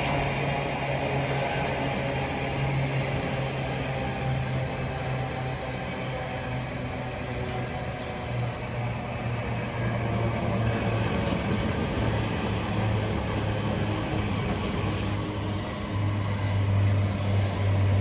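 Diesel locomotive engine running with a steady low drone, its note shifting and growing louder near the end.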